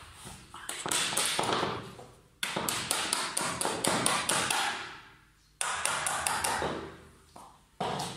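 A hammer striking a nail again and again to fix a skirting board to the wall: quick taps, several a second, in three runs with short pauses between.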